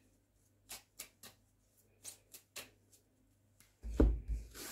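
A tarot deck being shuffled by hand: a string of short, sharp card flicks and slaps. About four seconds in, a louder thump and rustle as the hand and cards come down on the wooden table.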